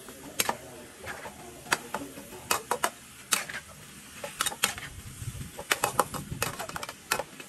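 Metal spatula clacking and scraping against a metal wok in irregular sharp strokes as beef and kale are stir-fried, with a low sizzle underneath.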